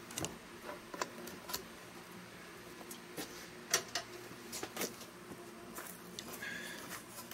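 A few scattered light clicks and knocks over a quiet background, from a wooden board and a snug-fitting PVC pipe being handled.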